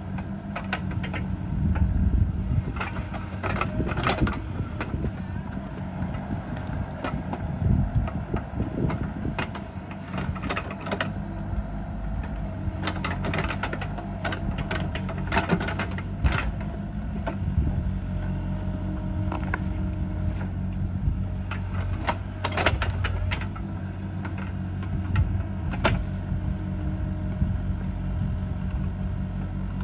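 Bobcat E37 compact excavator's diesel engine running steadily, with sharp knocks and clanks from the working machine at irregular intervals.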